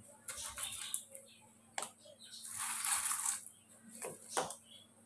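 Chunks of ice being picked out of a steel bowl and set into a pan of warm ghee: a few separate clinks and knocks, with a rustle of ice in the middle.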